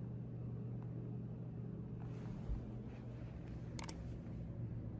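Quiet room tone: a low, steady electrical hum, with a faint double click about four seconds in.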